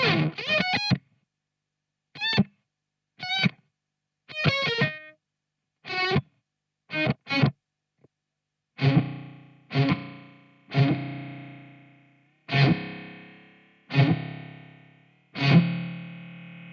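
Electric guitar with PAF-style humbuckers played through a Teisco Fuzz pedal. First come short, choppy distorted notes and phrases that cut off abruptly into silence. Then, from about nine seconds in, six single struck notes or chords about a second apart, each left to ring and fade.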